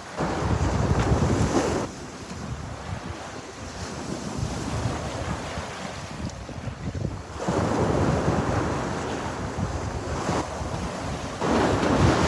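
Sea waves breaking and washing ashore, three surges swelling and falling back: one at the start, one about seven seconds in, and one near the end. Wind buffets the microphone throughout.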